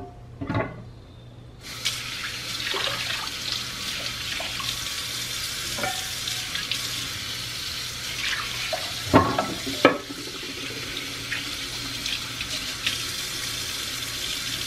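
Kitchen faucet running steadily into a sink from about two seconds in, filling unglazed clay pots with water so they soak and absorb it during curing. A few clunks of the clay pots being handled in the sink; the loudest are two close together, about nine to ten seconds in.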